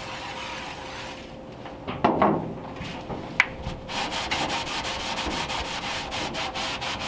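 An aerosol can of pre-painting prep cleaner hisses as it is sprayed onto the bare sheet-steel floor pan. There is a knock about two seconds in. From about halfway, a rag wipes back and forth over the steel in quick rubbing strokes, about four a second.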